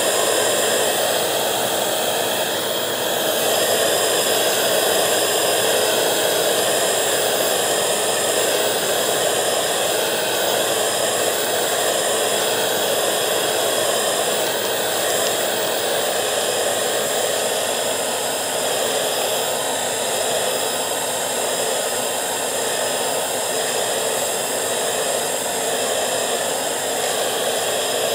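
Bissell 3-in-1 corded stick vacuum running steadily, a constant rush of air with a high motor whine, as its floor nozzle is pushed back and forth over a shag rug.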